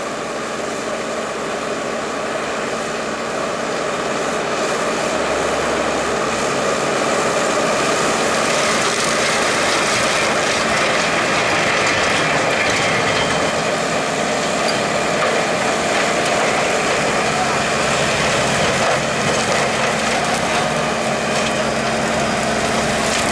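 Skid steer loader working an HCN 0513 series hydraulic forest mulcher attachment: a steady, heavy machine noise that builds over the first several seconds and then holds.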